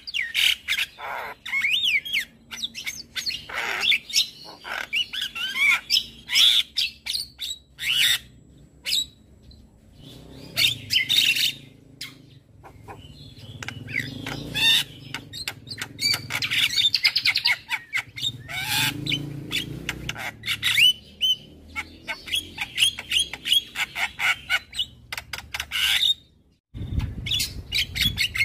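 Javan myna (jalak kebo) singing in a fast, busy run of whistled rising and falling notes, clicks and harsh squawks, broken by a short pause near the end.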